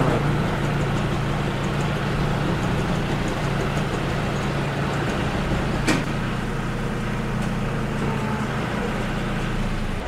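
Tractor-driven Faresin feed mixer wagon running steadily as it unloads feed, with one brief sharp click about six seconds in.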